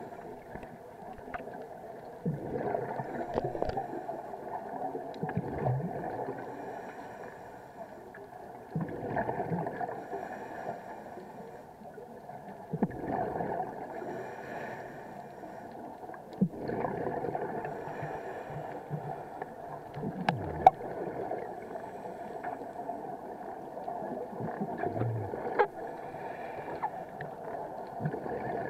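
Scuba regulator breathing heard underwater: exhaled air bubbling out in surges about every three to four seconds over a steady muffled hiss. One sharp click about two-thirds of the way through.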